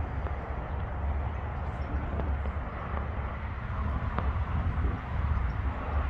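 Wind buffeting the handheld camera's microphone: a steady low rumble, with a few faint ticks.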